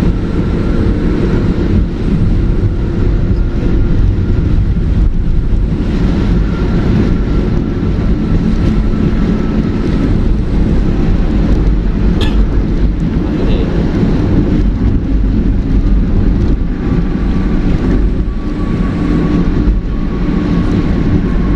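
Steady engine and road noise of a car driving at highway speed, heard from inside its cabin.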